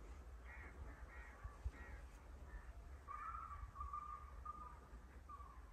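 Birds calling: a few short calls in the first two seconds, then a run of short, level calls a little lower in pitch from about three seconds in, over a low rumble. A single brief knock a little under two seconds in.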